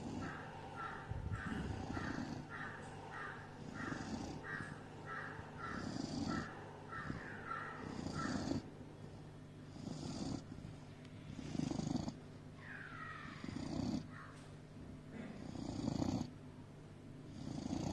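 A Doberman snoring in its sleep: a slow, regular rhythm of snoring breaths, about one every two seconds.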